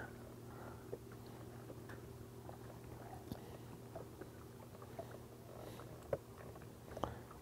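Faint steady low hum aboard a fishing boat, with light clicks and taps scattered through; the sharpest tap comes about six seconds in.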